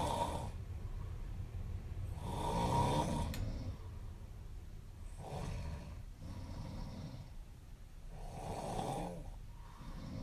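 A young woman snoring in her sleep, one snore roughly every three seconds.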